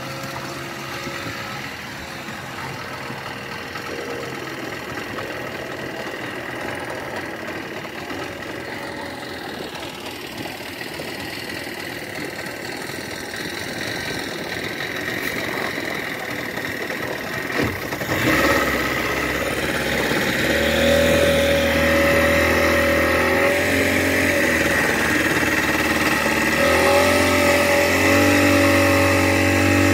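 Speedboat engine running slowly, then opening up about two-thirds of the way through and running louder and steadier under way, its pitch stepping up near the end.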